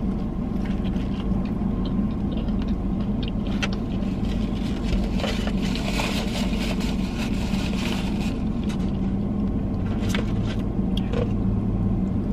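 Steady low hum of an idling car, heard inside the cabin, with small chewing clicks and, around the middle, the rustle of a paper napkin being rubbed.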